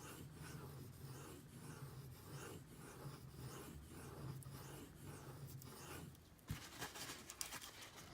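D2-steel knife blade being stroked back and forth on a Shapton Pro 5000-grit sharpening stone, a soft scraping at a steady rhythm of about two strokes a second. About six and a half seconds in the strokes stop with a knock and a few clicks.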